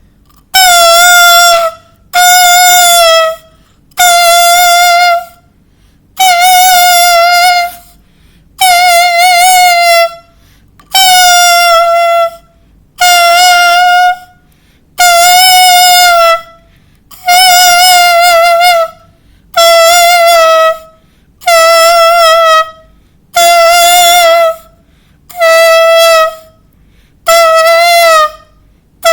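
Clarinet imitating a crying baby: about fourteen loud wailing notes at the same pitch, each about a second and a half long and separated by short gaps, each wavering and bending down slightly as it ends.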